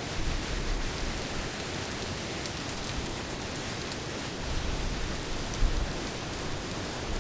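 Steady rain falling during a thunderstorm: a dense hiss with scattered drop ticks and an uneven low rumble of gusts underneath.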